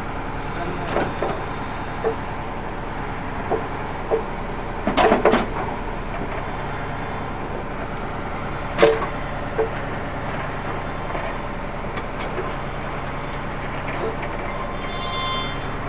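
A heavy vehicle's engine running steadily, with scattered knocks and clunks, the loudest a cluster about five seconds in and a sharp one near nine seconds.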